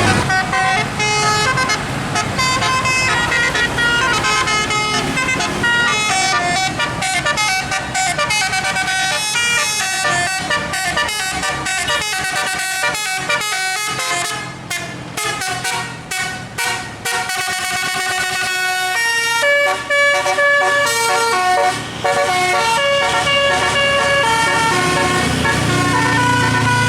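Bus telolet horn, a multi-trumpet musical horn playing a rapid, changing tune note after note, choppier about halfway through. A low rumble sits under it at the start and near the end.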